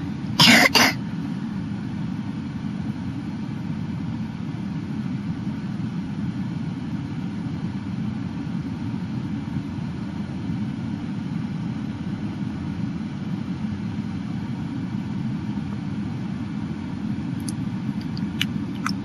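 Steady low rumble of wind on the microphone mixed with a vehicle engine running, with one short loud burst about half a second in.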